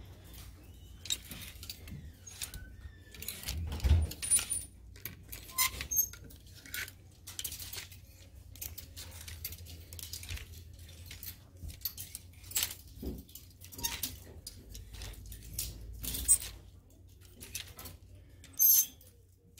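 Clear plastic clothes hangers being slid along a metal clothing rack, clicking and clacking against each other and the rail in irregular runs. The loudest clacks come about four seconds in and near the end, over a low steady hum.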